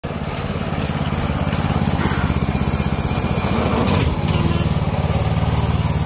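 Small gas engine of a kid's go-kart running, a rapid, even putter of firing pulses; its pitch shifts about four seconds in as the speed changes.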